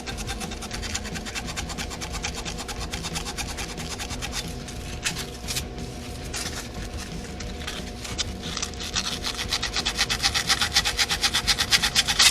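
Rapid back-and-forth hand scrubbing on metal: rust being cleaned off the vacuum-line fitting so a new vacuum line can seal. The strokes come quickly and evenly and grow louder over the last few seconds.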